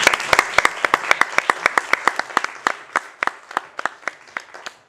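Audience applauding, with sharp, distinct claps from someone close by standing out over the general clapping. The applause fades away toward the end.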